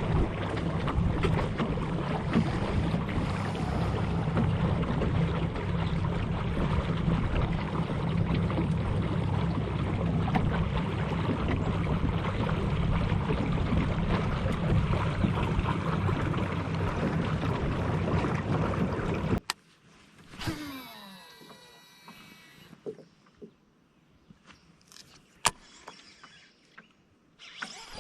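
A small boat's motor running steadily with a low hum, which stops abruptly about two-thirds of the way in, leaving quiet with a few sharp clicks.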